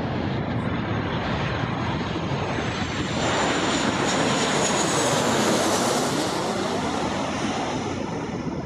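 Jet airliner passing low overhead on landing approach: a steady engine rumble that swells to its loudest about midway, carrying a high whine that slowly falls in pitch, then eases off near the end.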